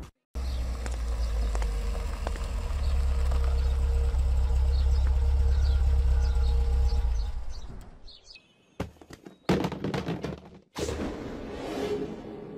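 Low steady rumble of a large wheeled vehicle rolling past, with faint bird chirps above it; the rumble dies away about seven and a half seconds in. Then come a few sharp knocks and thumps, the loudest about nine and a half seconds in.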